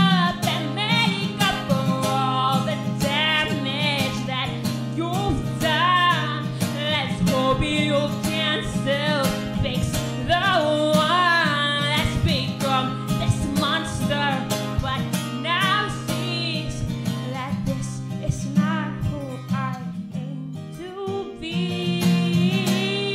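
A woman singing a song while strumming an acoustic guitar. A little before the end the voice drops out briefly while the guitar carries on, then the singing resumes.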